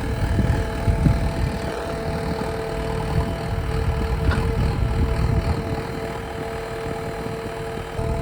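JCB backhoe loader's engine running, with an uneven low rumble and a steady whining tone held throughout.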